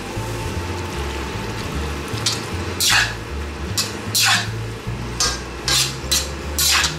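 Slotted spatula stirring and scraping noodles around a black wok. A run of short scrapes and taps against the pan comes about every half second from about two seconds in, over a steady sizzle of frying in a little broth.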